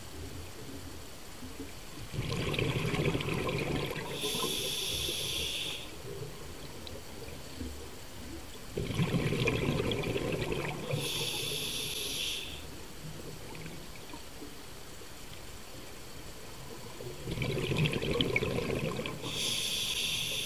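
A scuba diver breathing through a regulator underwater: three breaths about eight seconds apart, each a burst of rumbling exhaust bubbles and a hiss from the regulator.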